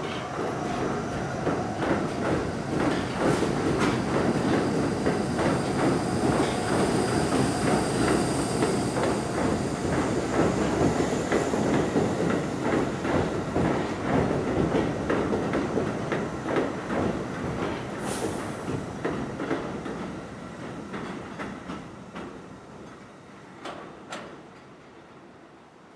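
A New York City subway work train of R32 cars hauling a rail adhesion (GEL) car passes at speed. Its wheels rumble and clickety-clack steadily over the rail joints, with a faint high whine in the middle of the pass. The sound fades away over the last several seconds as the train recedes.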